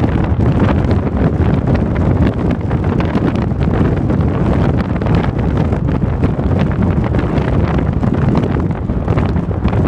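Wind buffeting the microphone of a camera riding on a vehicle moving at highway speed, a loud, steady rumbling flutter with road noise beneath it.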